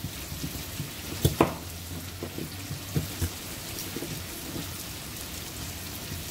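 Chayote, carrot and sweet potato frying in oil in a pan, a steady sizzle with scattered pops, the loudest pair about a second in.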